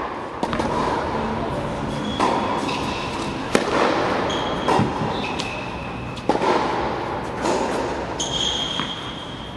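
Tennis ball being struck by a racket and bouncing on the court, about six sharp knocks spaced a second or two apart, echoing in a large indoor tennis hall, with several high squeaks of tennis shoes on the court surface.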